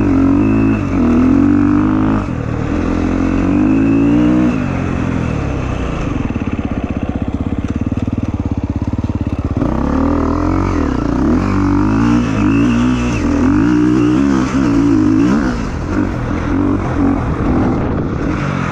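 Motorcycle engine revving up and down again and again, with a steadier, lower-revving stretch in the middle before the revs start rising and falling again.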